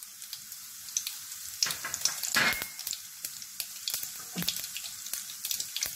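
Cumin and mustard seeds sizzling in hot oil in a pan for a tempering: a steady hiss with scattered small pops and crackles, and a louder pop about two and a half seconds in.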